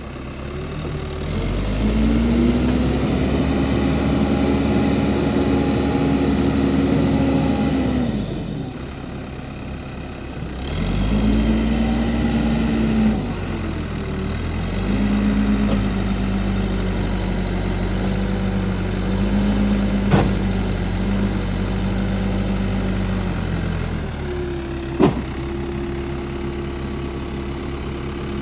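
New Holland B95 backhoe loader's diesel engine running, revving up and down several times, held at a steady higher speed for a while, then settling lower near the end. Two sharp metallic knocks stand out, about 20 and 25 seconds in.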